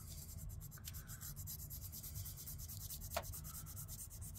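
A small scrap of sandpaper rubbed by hand in quick short strokes over the bare metal of a paint-stripped die-cast car body: a faint scratchy scuffing that roughens the surface so primer will stick. A small click about three seconds in.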